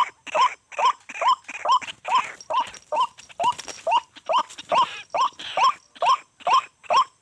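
White-breasted waterhen calls: a fast, even run of short rising notes, two or three a second.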